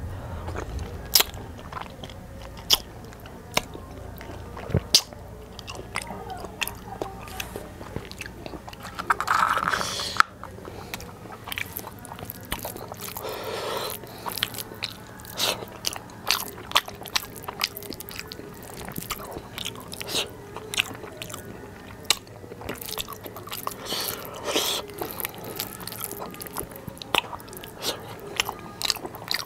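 A person chewing handfuls of biryani rice eaten with the fingers, with many short, sharp wet mouth clicks and smacks over the chewing.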